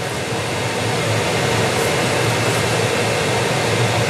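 A fan running with a steady, loud rushing noise.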